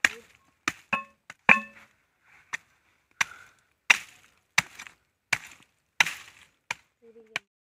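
A curved machete chopping into the fibrous base of a wild date palm to get at the edible tuber. About a dozen sharp blows fall roughly one every half to three-quarters of a second, and a couple of them around a second in make the blade ring briefly.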